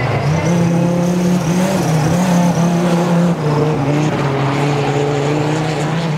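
Audi Quattro A2 Group B rally car's turbocharged five-cylinder engine held at fairly steady revs, its pitch shifting a little a few times and dipping slightly a little after three seconds in.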